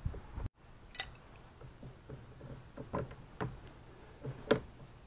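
Scattered light clicks and knocks of hands working a rubber intake boot onto an engine's throttle body and hose-clamp pliers working a clamp, with the sharpest click near the end.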